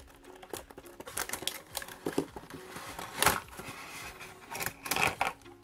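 A cardboard toy box and its clear plastic blister insert being handled and slid apart: irregular rustling, scraping and crinkling of card and plastic, with sharper plastic crackles about three seconds in and again near the end.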